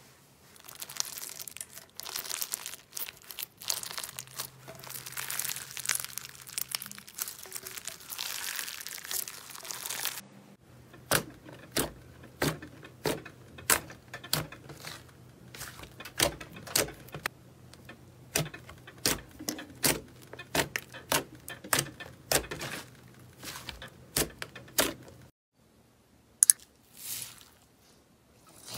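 Slime coated in gold foil star confetti being squeezed, a dense crinkling. Then thick green slime pressed and kneaded with the fingers, making sharp clicking pops about twice a second. After a short pause near the end, a few pops come as jelly-bead slime is poked.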